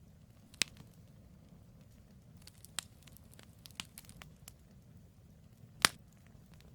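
Wood campfire burning with a low steady rumble and sharp crackles and pops of the burning logs: a loud pop about half a second in, scattered smaller crackles in the middle, and the loudest pop near the end.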